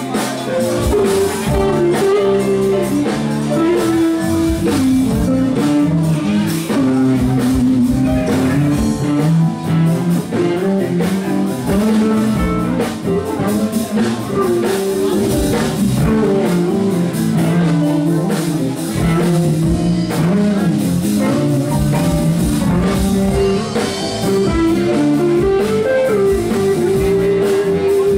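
Live funky blues band playing, with an electric guitar carrying the lead line over bass, drums and keyboards, and no singing.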